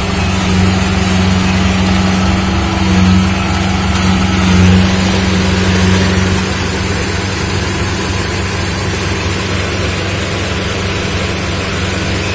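Kubota Pro488 combine harvester's engine running steadily with a low hum, with small swells in the first half and then settling a little quieter from about halfway through.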